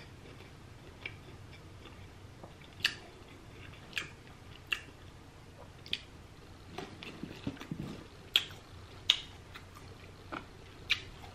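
A person eating sauce-coated seafood: wet mouth smacks and chewing, heard as short sharp clicks at irregular intervals about a second apart.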